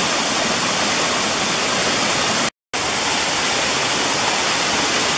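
Waterfall cascading down rock ledges: a loud, steady rush of falling water, with a brief dropout to silence about halfway through.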